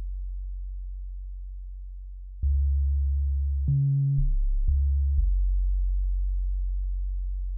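Deep synthesized sine-like bass notes playing back from the music software: long low tones that fade slowly, with new notes coming in about two and a half seconds in, a short higher note that slides down about a second later, and another long note from about five seconds in.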